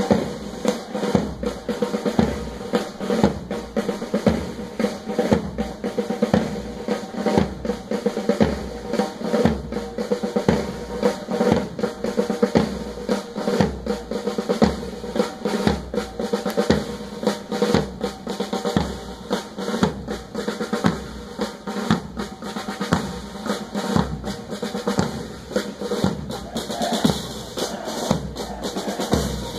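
Military band drum section playing a marching cadence: snare drums rolling and tapping over a steady, evenly spaced bass drum beat.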